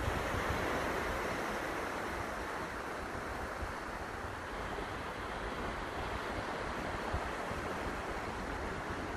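Steady rushing of wind and sea on an open pier, with the wash of water against the sea wall and low buffeting of wind on the microphone.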